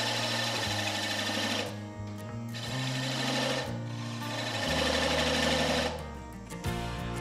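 Turning tool cutting the wood of a mallet head spinning on a wood lathe: a chattering, scraping noise in three passes, the last ending about six seconds in. Background music runs underneath.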